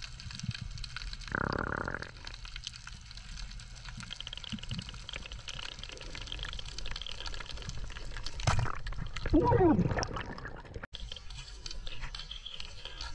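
Water sloshing and bubbling close to the microphone, with a short louder rush of water about a second in and a louder gurgle, like air bubbling through water, about nine seconds in.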